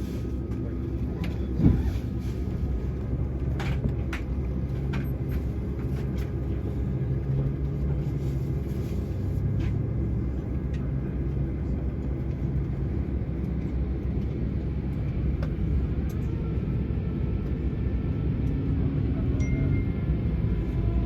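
Cabin noise inside an Airbus A220-100 on the ground before takeoff: a steady rumble from the running engines and cabin air, with a sharp thump about two seconds in and a few light clicks.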